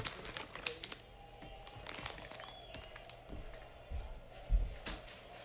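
Faint background music with many small sharp clicks in the first two seconds, then two dull low knocks near the end, the second louder.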